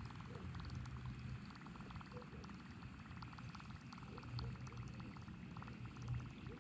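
Faint steady whirr of a Shimano Stradic CI4+ spinning reel being cranked during a retrieve, with fine rapid clicking.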